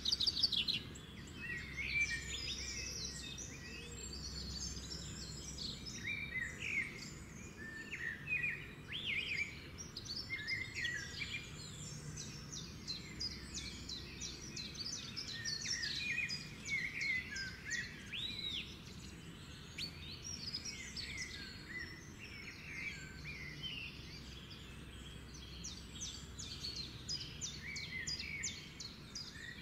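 Birds chirping and singing continuously: many short, high chirps, trills and quick rising calls overlapping one another, over a faint low hum.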